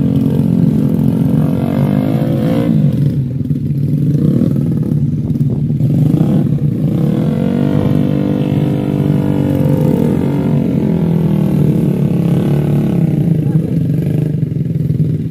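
Small motorcycle engine revving hard under heavy load, its pitch rising and falling repeatedly as the sack-laden bike is forced through deep mud.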